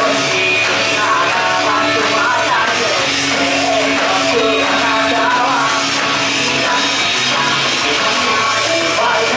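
A woman singing live into a handheld microphone over loud amplified backing music.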